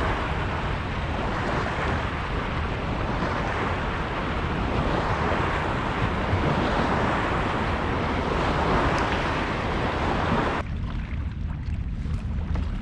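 Wind buffeting an action camera's microphone on open water, over a steady rush of water noise. About ten seconds in, the higher rush cuts off abruptly, leaving only a low wind rumble.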